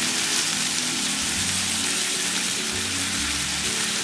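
Cluster beans and potato chunks sizzling steadily in a kadhai of hot oil and green masala, just added to the pan. Soft background music plays under it.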